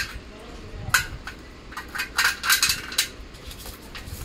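Sharp metallic clinks and taps of nuts and bolts against the steel frame of a sewing-machine stand as nuts are fitted by hand: a scattered run of clicks, several close together around the middle.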